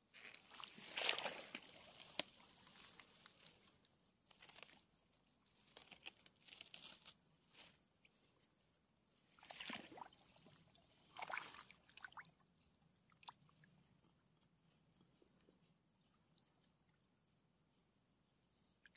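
Faint, steady high-pitched insect call, with a few short noisy bursts of movement: one about a second in and two more around the middle.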